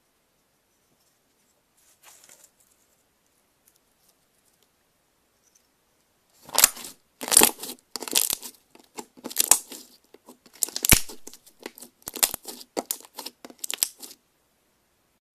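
Slime being squeezed and stretched by hand: a faint noisy burst about two seconds in, then, from about six seconds in, a run of about a dozen short, loud noisy bursts.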